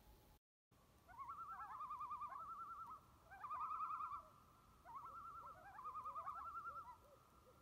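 Common loon giving its tremolo call: three runs of rapid, wavering, laughter-like notes with short gaps between them, and brief rising notes in between.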